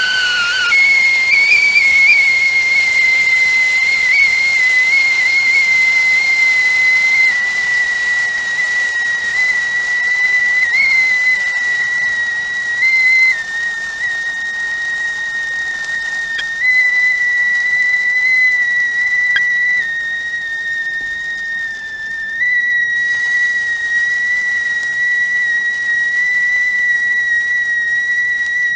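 Stovetop tea kettle whistling at the boil: a steady, high-pitched whistle over a hiss of steam. The pitch steps up about a second in, then wavers and shifts slightly a few times.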